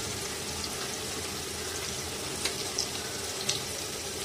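Potato wedges and green chillies frying in hot oil in a kadai: a steady sizzling hiss with a couple of sharp pops from the oil.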